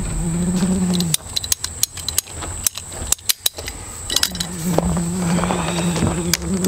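Sharp clicks and clinks of tools and plumbing fittings being handled at the trench, several in a quick run through the middle. A steady engine hum sounds at the start and comes back about four seconds in.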